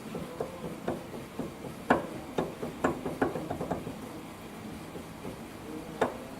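Wheel hub on a Nissan 180SX clunking in a series of sharp, irregular knocks, several in the first few seconds and one more near the end. This is the play of a worn, loose hub bearing being taken up.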